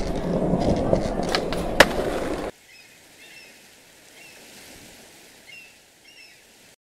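Skateboard rolling: a steady rumble with two sharp clacks, cutting off suddenly about two and a half seconds in. After that, faint short high chirps over a light hiss.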